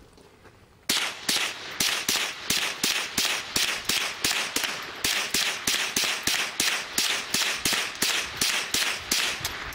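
Ruger 10/22 .22 LR semi-automatic rifle with a muzzle brake, fired rapidly: a steady string of sharp shots at about three a second, starting about a second in.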